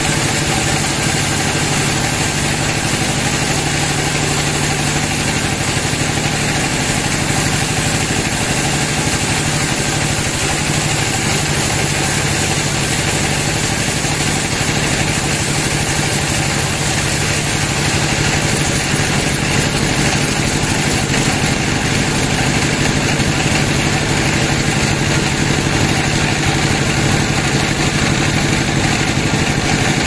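Sawmill band saw running steadily with a continuous machine drone, its blade sawing lengthwise through teak timber.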